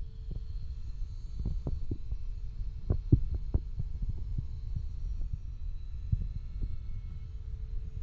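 Small handheld cordless vacuum cleaner running with a steady low hum, with a cluster of light knocks and taps from handling between about one and a half and three and a half seconds in.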